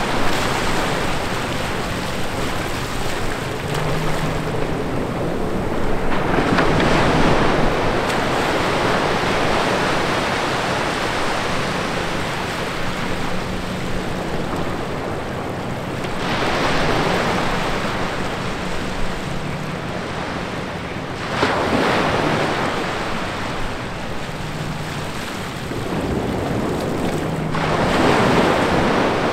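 Small ocean waves breaking and washing up over wet sand between rocks: a steady wash of surf, with four louder rushing surges as bigger waves come in.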